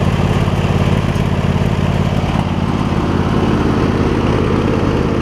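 A garden tractor's 20 hp V-twin engine running at a steady speed without surging up and down, its carburetor freshly cleaned.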